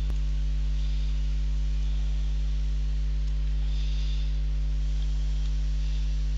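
Steady low electrical mains hum carried in the recording, with a brief click right at the start and a few faint scratches of a stylus writing.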